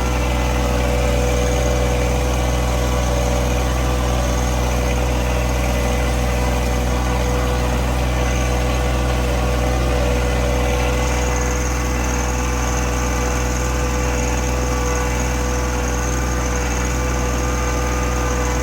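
Engine of a four-wheel-drive utility vehicle running steadily under light load as it drives through a thick food plot. A constant tone carries through, with no change in engine speed.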